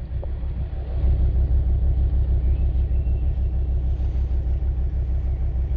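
Volvo car engine idling steadily, a low even rumble that gets slightly louder about a second in. The engine is kept running so the battery tester can check the alternator's charging ripple.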